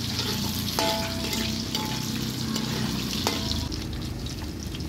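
Sliced onions sizzling in hot oil in a metal wok while a metal ladle stirs them. The ladle knocks against the wok twice, about a second in and again after about three seconds, each time with a short metallic ring.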